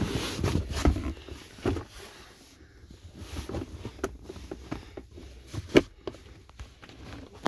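Handling noise of a phone being moved around inside a car: rustling and shuffling against leather seats for the first couple of seconds, then scattered small clicks and knocks, with one sharp knock about six seconds in, the loudest sound.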